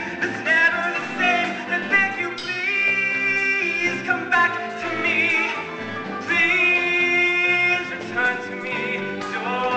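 A young man singing solo in a stage musical, over instrumental accompaniment, with vibrato on his held notes.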